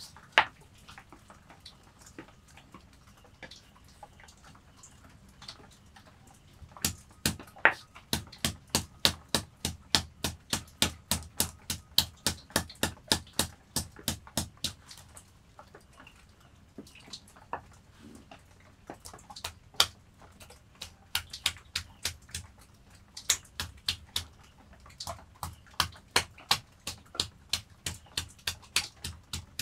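Hand-held stone pestle knocking on a flat stone grinding slab (Nepali silauto and lohoro), crushing garlic cloves and chilies. The knocks come in quick, even runs of about three a second, pause for a few seconds midway, then start again.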